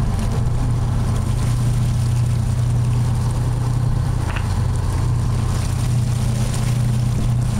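Tour boat's engine running steadily, a constant low drone heard from on board, with the wash of water around the hull.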